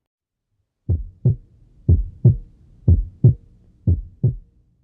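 Human heart sounds: four lub-dub pairs, about one a second, starting about a second in. Each pair is the first heart sound, the closing of the mitral and tricuspid valves, followed by the second, the closing of the aortic and pulmonary valves; the gap within each pair is shorter than the gap before the next beat.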